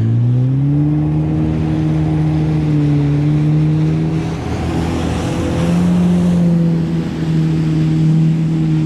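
Yamaha FX HO WaveRunner jet ski's engine rising in pitch as it accelerates, then running steadily at speed with a hiss of spray from the hull. The engine note eases briefly about halfway through and climbs back.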